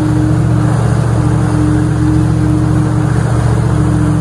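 Meridian 341 motor yacht running at cruising speed: steady drone of its gas engines, with water rushing and splashing along the hull close to the microphone.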